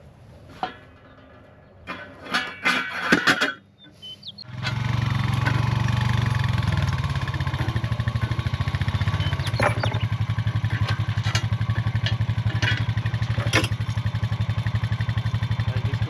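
A few knocks and clatters, then an engine starts about four and a half seconds in and runs steadily, with a fast even pulse.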